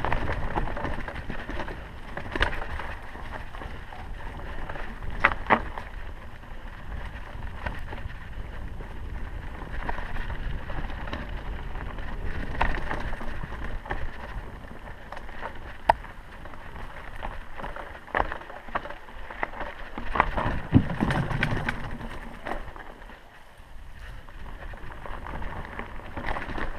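Mountain bike descending a dirt singletrack: a steady rumble of tyres and wind, with sharp knocks and rattles from the bike over rough ground, the loudest around two thirds of the way through. It eases off briefly near the end.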